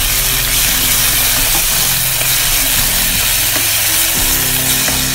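Soy sauce sizzling in a hot nonstick pan with sautéed garlic, onion and ginger as a spatula stirs it, a loud steady hiss. Background music plays underneath.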